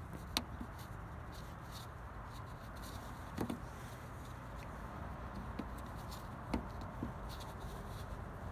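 A few faint plastic clicks and taps as a bulb socket is worked into the back of a tail-light housing, over a steady low background hum.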